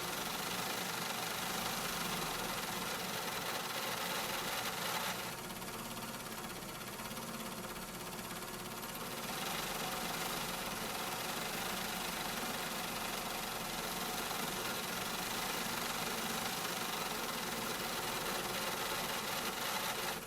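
Factory machinery running steadily: a dense mix of mechanical hum, held tones and hiss. The high hiss drops back for about four seconds, starting some five seconds in, then returns.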